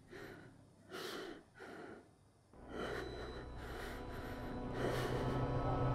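A person takes three short, heavy breaths, then a low, droning background din with a steady hum swells up and grows louder.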